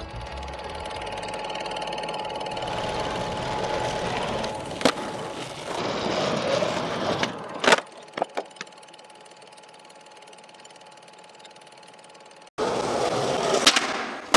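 Raw street sound with a vehicle running, broken by a few sharp knocks. After a sudden cut near the end, a skateboard smacks onto a concrete ledge and grinds along it.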